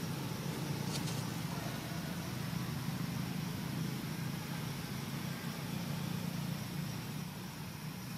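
Steady low rumble with an even hiss over it, like distant road traffic. There is one faint, brief high sound about a second in.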